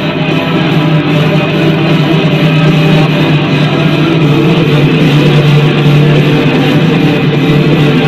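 Rock music with electric guitar playing loudly and steadily: an ice hockey team's goal song following the goal horn.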